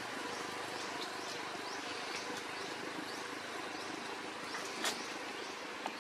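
Outdoor ambience: a steady hiss, with a small bird chirping short high notes about twice a second over the first couple of seconds. There is one sharp click about five seconds in.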